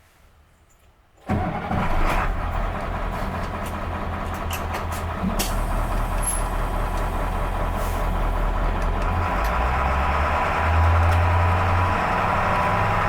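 A school bus engine starts about a second in and keeps running with a steady low throb, growing a little louder near the end.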